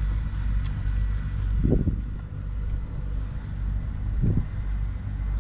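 A steady low engine hum, with two brief dull sounds about a second and a half in and again near four seconds.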